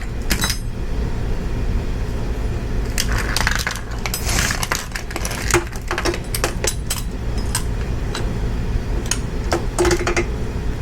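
Scattered metallic clinks, clicks and short rattles of motorcycle parts and tools being handled, over a steady low background hum.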